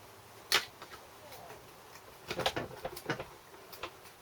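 A few sharp metallic clicks and clinks from tools and engine parts being handled during small-engine disassembly: one about half a second in, then a cluster of several between two and four seconds in.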